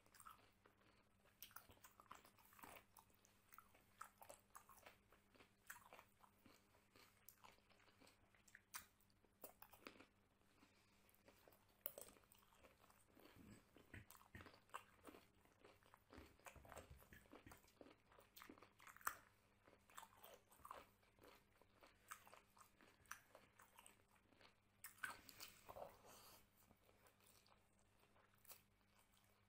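Faint close-miked chewing and mouth sounds of a man eating mutton curry and rice by hand: a run of short wet clicks and smacks.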